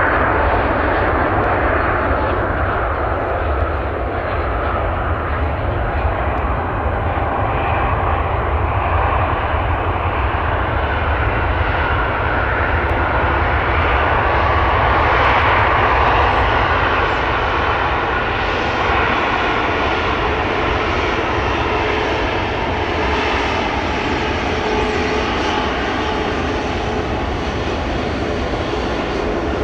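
Jet airliner engines, a continuous noise with faint gliding tones that grows loudest about halfway through and then slowly eases off as the aircraft moves along the runway.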